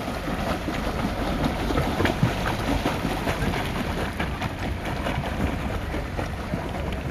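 Wind buffeting the microphone: a steady, loud rush with a low rumble and small scattered knocks, starting suddenly on a cut.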